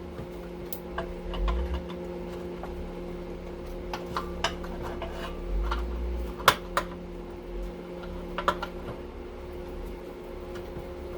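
Scattered light metallic clinks and knocks as a small breaker and hand tools are handled, over a steady low hum.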